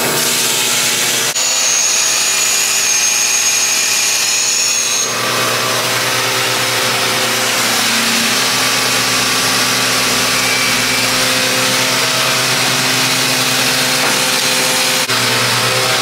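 Water running hard from a faucet into a stainless wash vat for the milking system's wash, then gushing from a hose onto a concrete floor, over a steady machine hum. The sound changes abruptly about a second in and again about five seconds in, with a high whine between.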